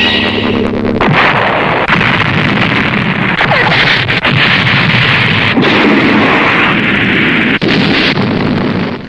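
Vintage tokusatsu explosion sound effect: a pitched electronic tone cut off about a second in by a crash, followed by a long, dense roar of noise with scattered crackling pops that fades out after about eight seconds.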